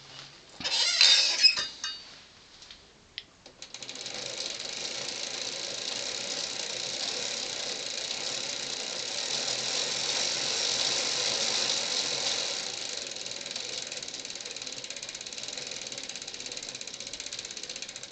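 Bicycle crank spun by hand, the chain running and the rear freewheel ratcheting in a steady, rapid clicking, after a short clatter of handling about a second in.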